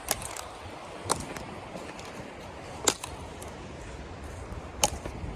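Four sharp clicks or knocks at uneven intervals over a steady background of wind.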